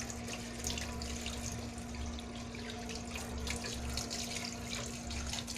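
Kitchen tap running while rice is rinsed under it, a steady hiss of water with small splashes, over a faint steady hum.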